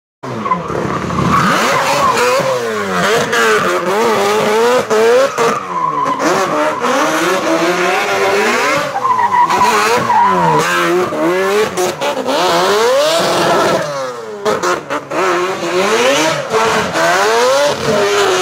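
Drift car engines revving hard, the pitch swooping up and down repeatedly as the throttle is worked, with tyre squeal from the tyres sliding sideways.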